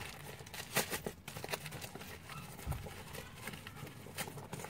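Coach leather belt bag being handled: its zipper is worked open and the tissue-paper stuffing inside rustles, with scattered small clicks from the zipper pull and hardware.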